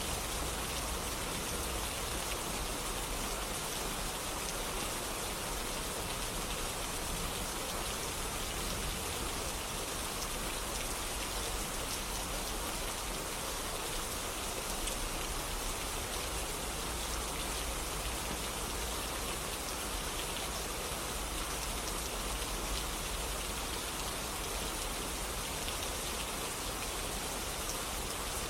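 Steady rain falling, an even hiss of many drops with fine scattered patter on surfaces.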